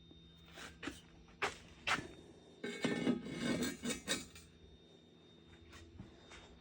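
Handling knocks from forge parts being fitted: four sharp clunks in the first two seconds, then a longer burst of clattering and scraping for about a second and a half.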